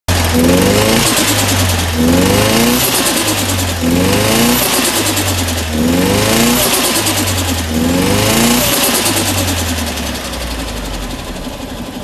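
Car engine revving over and over, the pitch climbing in a burst about every two seconds, fading slightly toward the end.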